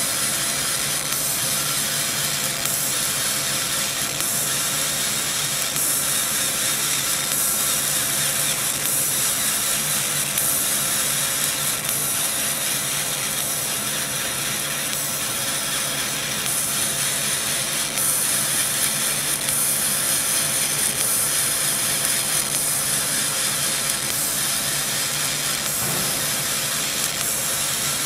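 CO2 laser cutting machine running as it cuts 0.3 mm brass sheet: a steady hiss over a low hum. The high hiss grows and fades every few seconds as the cut goes on.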